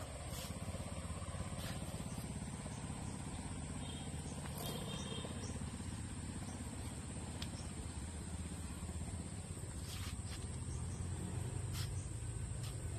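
Small motorbike engine running steadily at low speed, a low rumble with a faint steady high tone over it and a few light clicks.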